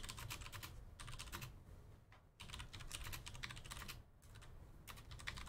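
Faint typing on a computer keyboard: quick runs of keystroke clicks, pausing briefly twice, about two and four seconds in.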